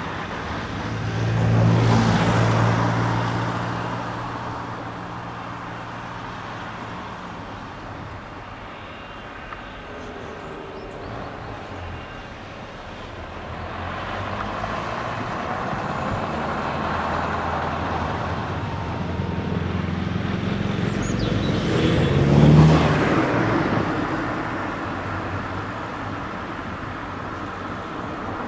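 Motorway traffic passing: a vehicle with a low engine hum goes by about two seconds in, then a steady rush of tyre noise, and another vehicle swells past about three-quarters of the way through, the loudest moment.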